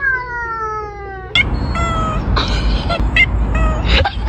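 A cat's long meow sliding slowly down in pitch, then several short meows over a steady low rumbling noise.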